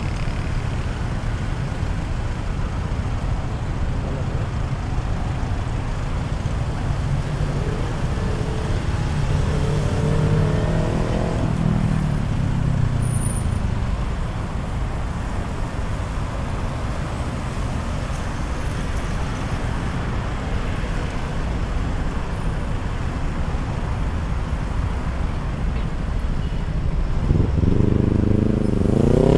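Road traffic close by: engines of cars and trucks running in a steady rumble. One engine speeds up, rising in pitch, about ten seconds in, and another revs up and back down loudly near the end.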